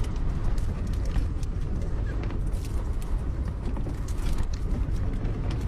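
Strong gusting wind buffeting a small camper van: a steady low rumble, with frequent creaks and clicks from the van's body as it rocks in the gusts.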